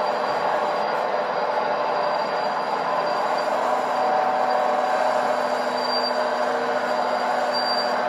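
RC Liebherr 926 Compact excavator's hydraulic system running steadily, a continuous mechanical whine with a faint high squeal that briefly gets louder about six seconds in and again near the end.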